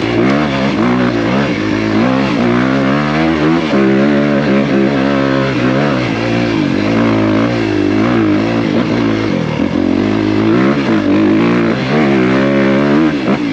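2023 Honda CRF250R's single-cylinder four-stroke engine under way on a dirt trail, revving up and falling back over and over as the throttle is worked, its pitch rising and dropping every second or two.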